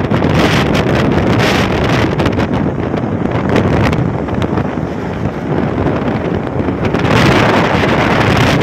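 Wind buffeting a phone microphone on a moving vehicle, over a steady low road rumble. It swells and gets brighter near the end as a truck passes close alongside.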